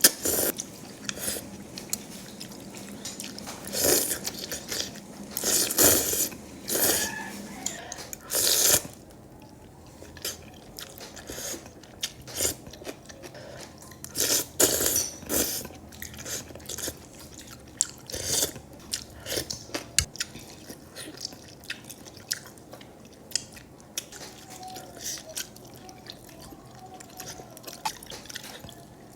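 Eating sounds of mie sop noodle soup being bitten and chewed, in irregular bursts, the louder ones about 4, 6, 9 and 15 seconds in.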